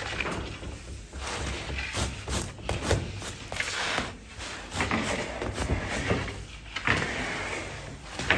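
Bakery handling noises: irregular scraping and rustling with a few knocks as baked pide flatbreads are moved and brushed on the counter, over a steady low hum.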